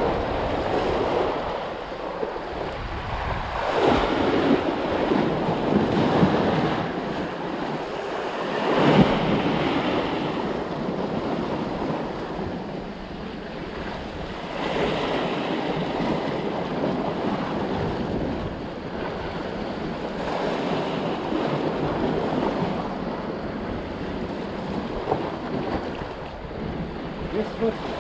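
Sea waves washing and breaking against a rocky shore, swelling in louder surges every few seconds, with wind blowing across the microphone.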